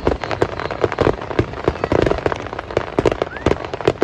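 Aerial fireworks bursting overhead in a rapid, irregular string of bangs and crackles, several a second.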